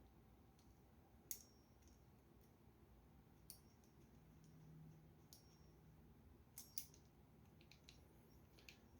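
Near silence broken by a few faint, sharp clicks of small metal reel parts being handled as the aftermarket knob is fitted to the spinning reel's handle.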